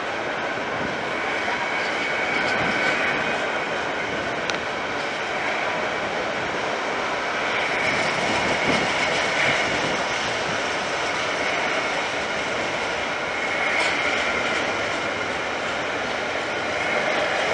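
A train passing: a steady rolling noise that swells slightly a few times, with a couple of faint clicks.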